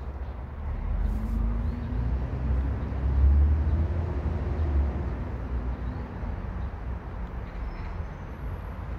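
A passing vehicle: a low rumble that swells to its loudest about three to four seconds in and then fades, with a faint engine tone that rises and falls as it goes by.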